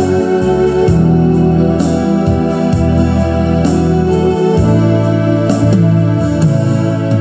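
Electronic keyboard playing a slow gospel hymn with an organ voice: sustained chords over held bass notes that change every second or two.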